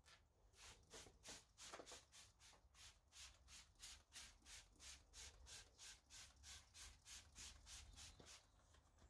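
Near silence, with faint, even pulses of hiss about three a second.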